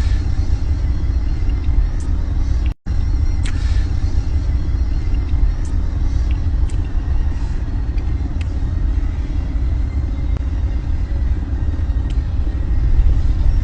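Steady low rumble, broken by a momentary drop-out to silence about three seconds in, with a few faint clicks.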